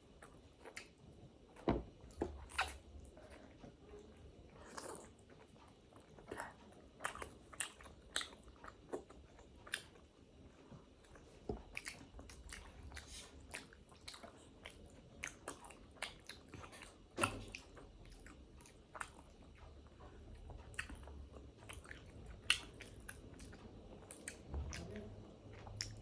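Close-up mouth sounds of eating dumplings: wet chewing, smacking and biting in many short, separate clicks.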